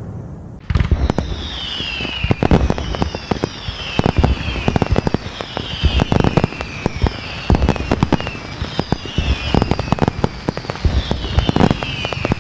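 Fireworks going off: a dense run of bangs and crackles with a falling whistle that repeats about every second and a half, starting suddenly about a second in.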